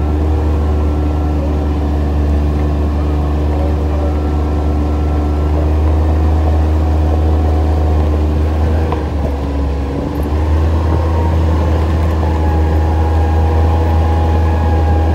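ATV engine running steadily as the quad rides along, a deep continuous drone; the engine note dips briefly about two-thirds of the way through, then steadies again.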